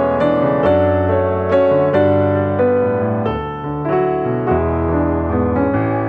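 Background piano music, slow sustained notes and chords.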